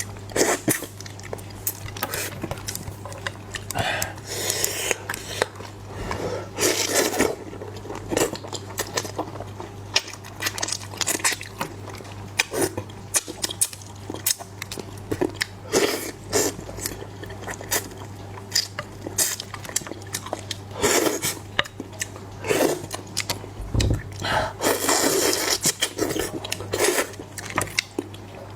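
Close-miked eating sounds: utensils clicking and scraping against a dish, mixed with chewing, in many short irregular bursts over a steady low hum.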